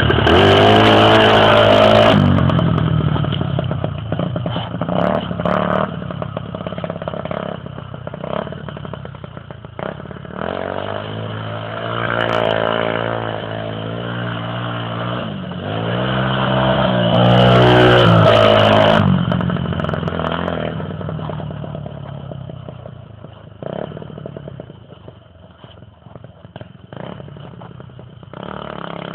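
Chinese 150 cc single-cylinder dirt bike engine revving hard, then riding off, its pitch rising and falling with the throttle and gear changes. It comes loud again a little past halfway and fades into the distance near the end.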